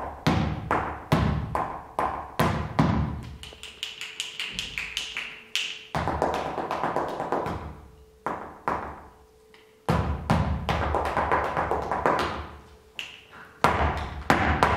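Flamenco footwork (zapateado): the dancer's shoes strike the stage floor in sharp, ringing taps. They come in irregular groups, quicken into a rapid run about four to six seconds in, and die away to near quiet around nine seconds before the strikes start again.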